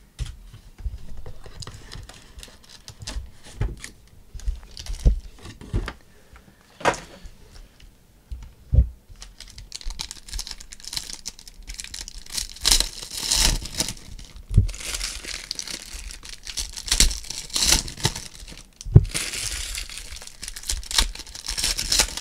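Foil trading-card pack wrappers being torn open and crinkled by hand. Scattered sharp taps in the first half, then louder, continuous crackling rustle and tearing from about halfway on.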